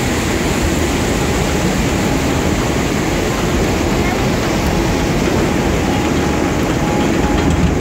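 Log-flume boat being hauled up the lift hill by its conveyor: a steady mechanical clatter and rumble that holds at an even level throughout.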